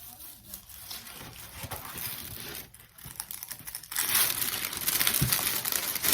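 Crinkling and rustling as a diamond painting canvas and its plastic wrapping are handled and unfolded. It grows much louder and denser about four seconds in.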